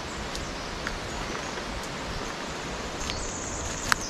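Steady forest ambience, an even hiss with a few faint ticks. About three seconds in, a thin, high birdsong starts up.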